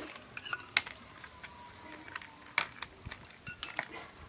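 Metal spoon clinking against a steel bowl and glass while spooning soaked chia seeds: a scatter of light clinks, with two sharper ones about one second and two and a half seconds in.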